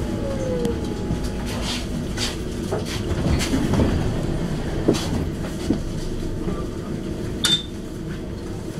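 A tram braking to a stop: its motor whine falls in pitch and dies away about a second in, over a steady low rumble. A few clunks follow as it comes to rest, then it stands running with a steady hum, broken by one sharp click near the end.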